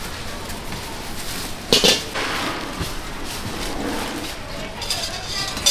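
Kitchenware clattering at a street-food stall, with one sharp, loud clank just under two seconds in and a smaller one near the end, over a steady background din.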